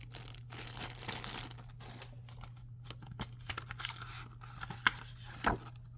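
Plastic packaging crinkling as small accessories are handled, then scattered light clicks and taps with a couple of louder knocks near the end, over a low steady hum.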